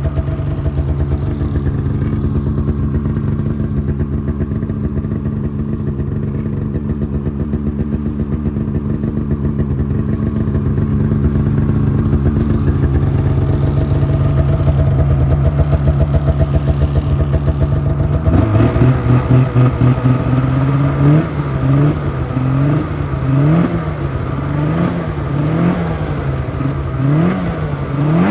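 Polaris 650 two-stroke snowmobile engine on its first run, idling steadily. About two-thirds of the way in, the throttle starts to be blipped: the engine revs up and drops back about seven times in quick succession.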